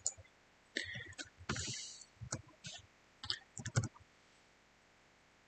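Computer mouse clicking a number of times at an irregular pace, with a short rustle about one and a half seconds in. The clicks stop about four seconds in.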